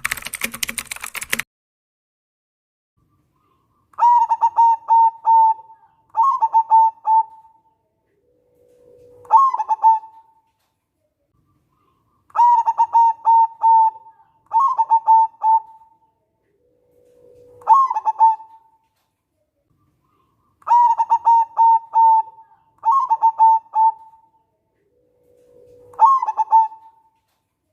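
Zebra dove (perkutut) cooing its song three times, a few seconds apart: each song is a quick run of clipped coos, a second short run, then a low note that rises into a final coo. A short burst of clicking at the very start.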